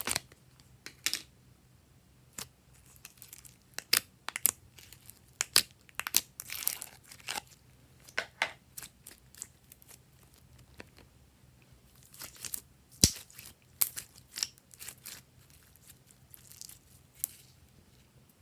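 Glossy slime being pressed, stretched and folded by hand, giving irregular sticky crackles and pops in clusters.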